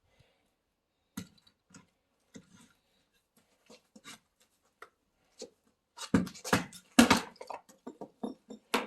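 Scattered short knocks and clicks, then a rapid run of louder knocks in the last three seconds.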